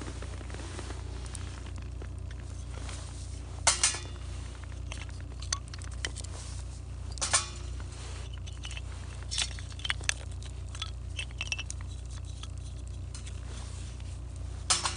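Wood campfire crackling, with several sharp pops scattered through it and fainter crackles between, over a steady low hum.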